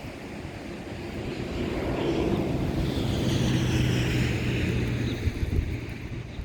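Strong wind gusting over the microphone, swelling about two seconds in and easing near the end.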